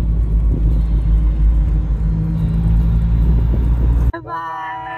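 Car driving with a loud, steady low rumble of engine and road noise. About four seconds in it cuts off abruptly to a voice singing.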